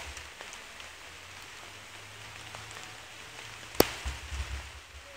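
Rain falling steadily as an even hiss on wet ground and foliage. A single sharp click comes a little under four seconds in, followed by a few low bumps.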